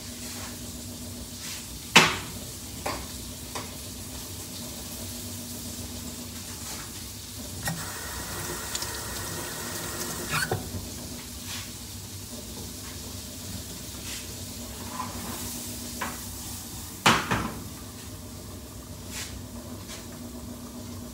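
Julienned onions and sweet peppers sizzling steadily in butter in a frying pan, with a utensil knocking and scraping against the pan now and then; the sharpest knocks come about two seconds in and again about seventeen seconds in.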